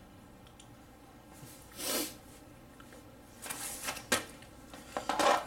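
A nylon shooting rifle rest being handled: fabric swishing and rustling in short bursts, with a sharp knock about four seconds in.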